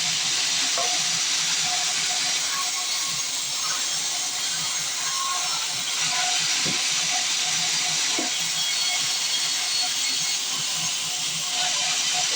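Sawmill band saw running, a steady loud hiss of machinery and sawing.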